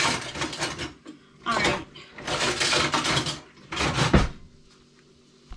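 Kitchen utensils and cookware being handled at a stovetop: several short bursts of handling noise, ending with a thump about four seconds in.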